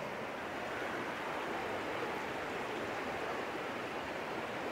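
Fast, shallow mountain river running over boulders: a steady rush of whitewater.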